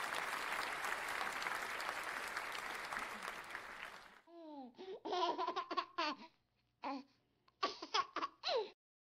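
Applause that cuts off about four seconds in, followed by several short bursts of a laughing voice, some gliding down in pitch, ending just before the close.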